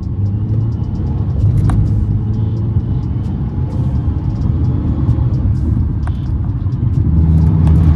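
Cabin noise of a 2015 Mercedes-Benz C300 (W205) on the move: a steady low rumble of its turbocharged four-cylinder engine and the tyres on the road, growing a little louder near the end.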